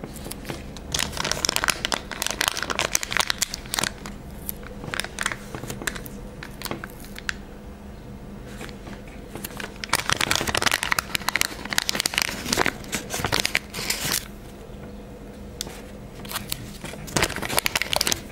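Crinkling and rustling of fingers handling small glossy stickers and their paper sheet close to the microphone. It comes in three spells of crackly clicks: about a second in, again from about ten seconds, and near the end.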